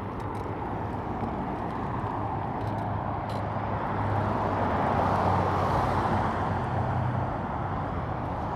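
Road traffic: motor vehicles running by, their noise swelling to a peak about five seconds in as one passes close, then easing off.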